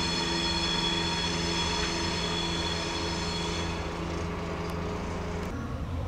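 Railway locomotive standing or moving slowly, giving off a steady hum with a high-pitched whine. The whine fades about four seconds in, and the low hum cuts off suddenly about five and a half seconds in.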